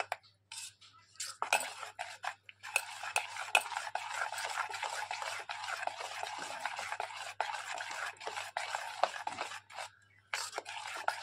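Rice-and-potato batter being mixed by hand in a stainless steel bowl: a wet stirring sound that starts after a couple of seconds of near quiet, runs steadily, and pauses briefly near the end.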